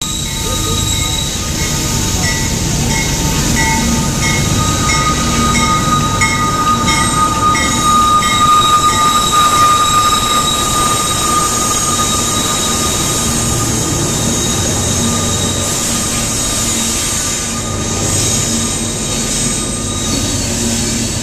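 Union Pacific GE AC6000CW and AC4400CW diesel-electric locomotives passing close and loud under power ("screaming"), with a steady high whine over the engine rumble, loudest as the units go by. The coal cars follow rolling past.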